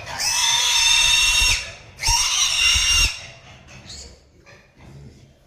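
A pig squealing: two long, high-pitched screams about a second apart, then short quieter grunts and snuffles.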